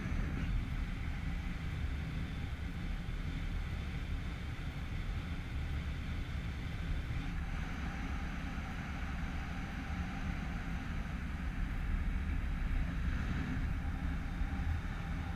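Steady rush and low buffeting of wind over the action camera's microphone as a paraglider flies through the air.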